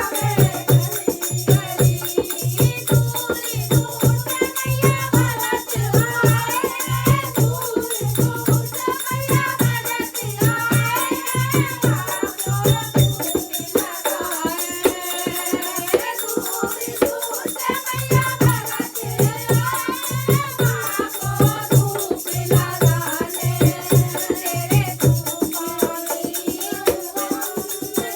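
Devotional Hindi bhajan: sung melody over a steady low drum beat about twice a second, with a shaken rattle; the drum drops out for a few seconds past the middle.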